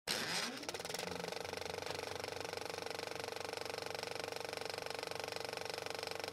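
Film projector sound effect: a fast, even mechanical clatter with a steady hum, spinning up with a rising pitch in the first half-second.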